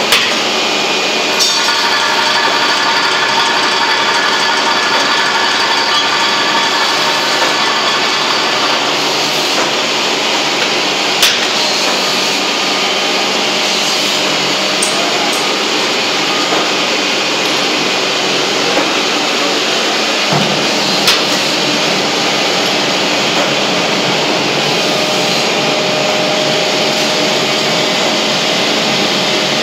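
Semi-automatic auger powder filling machine and its screw conveyor running: a loud, steady mechanical whir, with a few sharp clicks about 11 and 21 seconds in.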